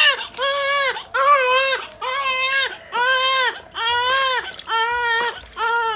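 Newborn baby crying: a steady run of short wails, about one a second, each arching up and then down in pitch.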